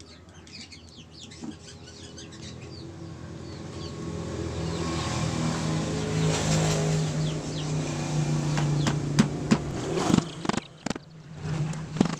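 A vehicle engine outside grows steadily louder over several seconds, holds, then drops away about ten seconds in. Near the end come a few sharp metal clicks, and faint bird chirps are heard at the start.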